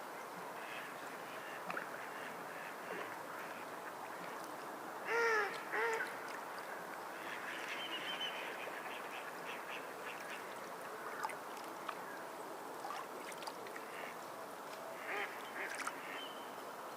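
Waterbirds calling over a steady wash of water, with two loud, downward-arching calls about five and six seconds in and fainter calls scattered through the rest.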